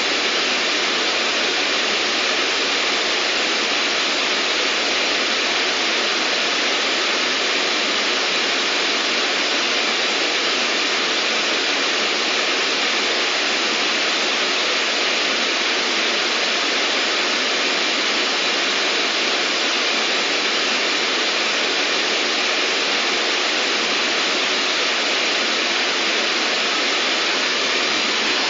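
Steady white noise: an even, unchanging hiss with little deep bass.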